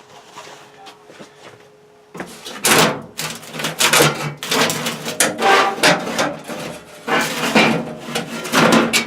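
Metal boiler flue pipe being twisted and pulled loose from the chimney, with a run of loud, irregular scraping and rattling strokes starting about two seconds in; a faint steady hum underneath.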